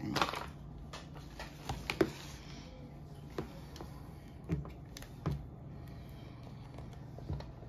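Scattered light clicks and taps of kitchen containers and a plastic lid being handled, with a brief rustle at the start and a faint steady low hum underneath.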